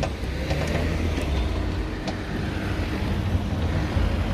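Steady low rumble of road traffic at a level crossing, with a few light clicks in the first two seconds.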